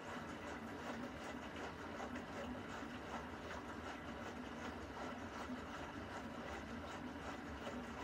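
Beko front-loading washing machine running its wash: the drum turning and tumbling laundry through water, a steady even churn with small irregular sloshes and ticks.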